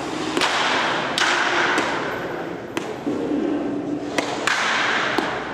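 Baseballs thrown at close range smacking into a catcher's mitt: about six sharp pops at irregular intervals during a catching drill.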